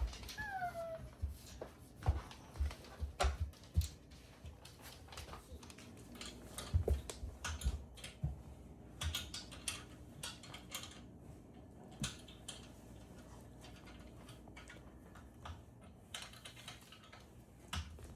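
Irregular light clicks and knocks of table saw stand parts being handled during assembly, with a brief squeak about half a second in.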